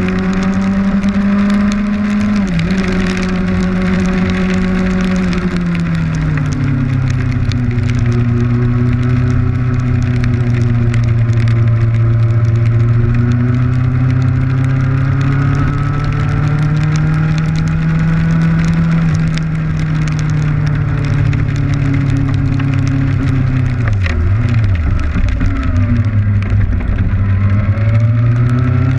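Kawasaki Ninja motorcycle engine running at road speed, its pitch dropping twice in the first few seconds, then holding steady, dipping briefly near the end and climbing again. Wind and rain hiss on the camera lie under it.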